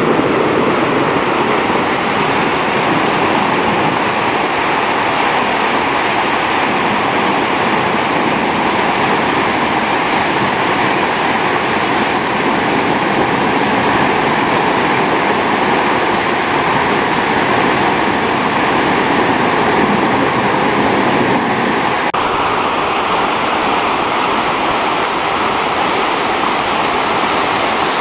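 Artificial rock waterfall pouring into a swimming pool: a loud, steady rush of splashing water.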